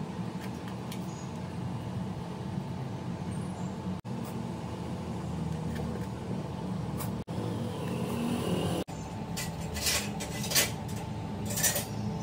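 A steady mechanical hum, with a few sharp clinks near the end.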